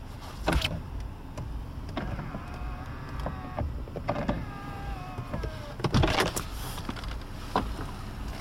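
Electric door mirror motors of a 2005 Mercedes CLS 350 whirring in two short runs of about a second each, a whine that sags slightly in pitch. Clicks and knocks fall between and after the runs, the loudest about six seconds in.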